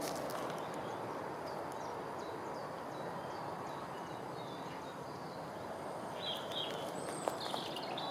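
Open-field ambience: a steady background hiss with small birds chirping, a few louder chirps near the end.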